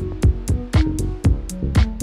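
Background music with a steady beat of about two drum hits a second.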